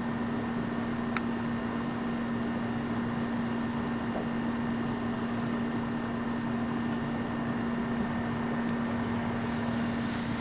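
Steady mechanical hum holding one low pitch, with a fainter high whine above it, unchanging throughout; a faint click about a second in.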